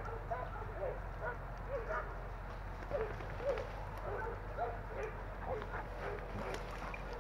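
Hunting dogs barking repeatedly, about two short barks a second.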